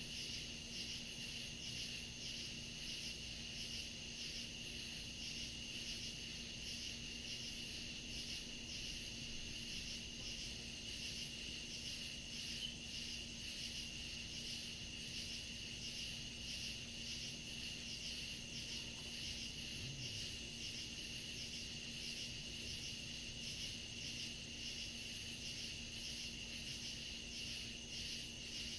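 Night chorus of crickets and other insects in woodland: a steady high trill under a faster, evenly pulsing chirp, going on without a break.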